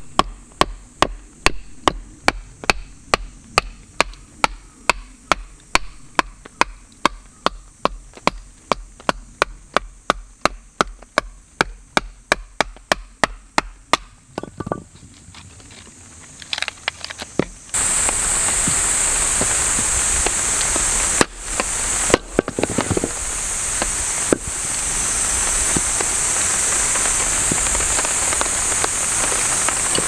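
A knife cutting into very hard broadleaf wood with evenly spaced sharp knocks, about two and a half a second, for roughly the first half. From about 18 s in, a loud steady hiss of rain takes over.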